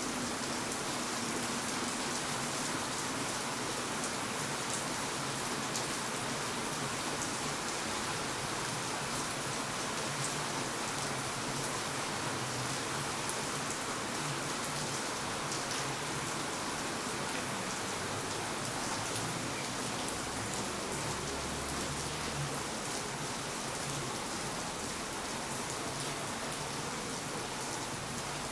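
Steady rain falling on hard surfaces, with many small drop ticks, over a faint low hum that swells and fades.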